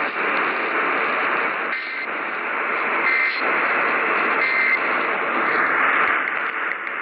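Distant AM radio station received through heavy static, the signal fading in and out. Three short tone bursts from the station's Emergency Alert System test break through the hiss, each a little over a second apart.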